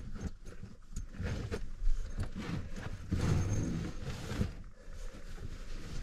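Rustling and scattered knocks and bumps of a person handling clothes and gear in the cramped bed of a truck camper, with a longer stretch of rustling about three seconds in.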